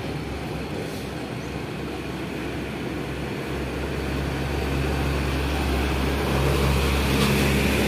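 Diesel tanker truck approaching and passing close by at low speed. Its engine note and tyre noise grow steadily louder, peaking in the last couple of seconds.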